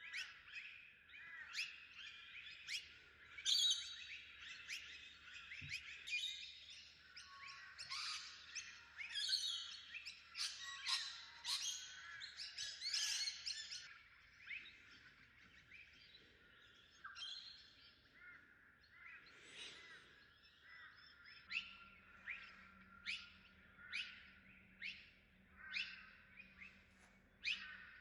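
Several small birds chirping and calling, many short overlapping notes for about the first half, then sparser single chirps.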